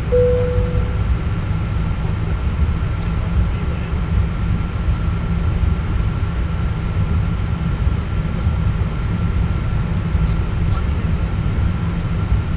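Cabin noise inside a Boeing 777-200ER taxiing: a steady low rumble from the engines at idle and the rolling airframe, with a thin steady high tone over it. A single short tone sounds right at the start and fades within about a second.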